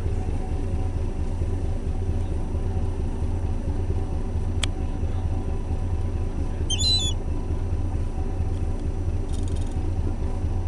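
Steady low rumble of an icebreaker's engines, with a single sharp click near the middle and a short, high gull call about seven seconds in.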